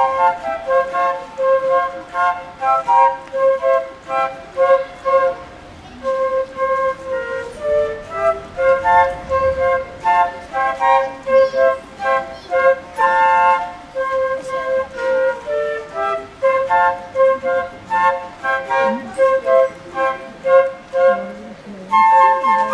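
A trio of young flutists playing a tune together, a repeated low note under a moving melody, with short breaths between phrases.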